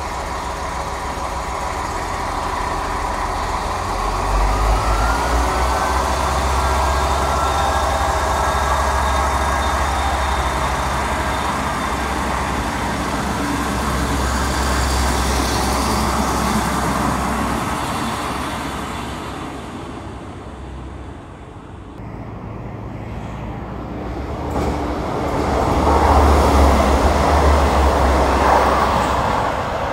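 Metrovagonmash diesel railcars. A two-unit set's engines run up about four seconds in with a rising whine, and it rumbles steadily as it pulls away. After a break, a second loud pass of a railcar rumbling by peaks near the end.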